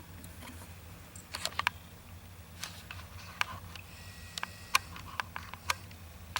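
Scattered light clicks and taps as a small part is handled and fitted back onto a Designer 1 sewing machine's body, over a low steady hum.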